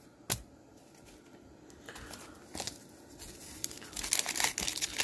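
Paper wrapper of a sealed trading-card pack crinkling and rustling in the hands. It starts with a single click, then the crackling builds from about halfway through as the pack is handled and worked open.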